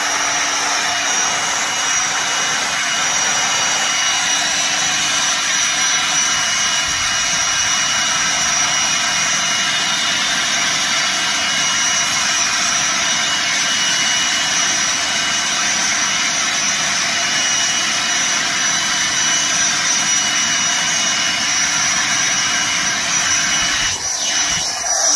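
Small electric air pump running steadily, blowing air through its nozzle onto glowing barbecue charcoal to fan the coals into flame: a steady motor whine over rushing air. It winds down near the end as it is switched off.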